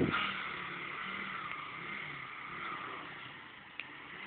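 Motorcycle engine running steadily at idle, with a short click near the end.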